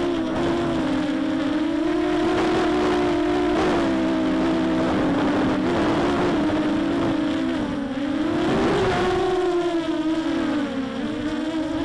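Mini Mamba mini FPV quadcopter in flight, heard from a camera mounted on the quad: its motors and 6x4 Gemfan props give a steady multi-tone whine that rises and falls with throttle, dipping twice near the end. It carries the hollow rattle that this quad is known for, whose cause the owner hasn't found; the motor bearings are fine and nothing is loose.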